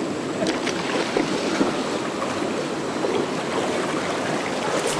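Shallow rocky river running steadily, with a few short splashes and drips as a cast net is lifted out of the water.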